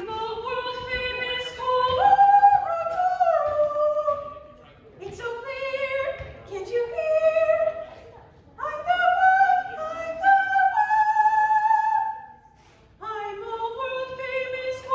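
A woman's solo voice singing unaccompanied for a microphone check, in four phrases of high, held notes with vibrato, broken by short breaths.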